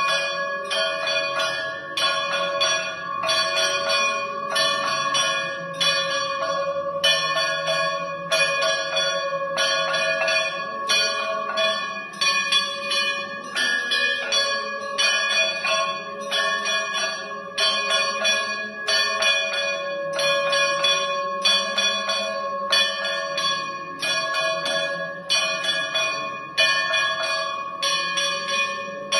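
Temple bells ringing continuously for aarti, struck evenly about twice a second, their tones ringing on between strikes.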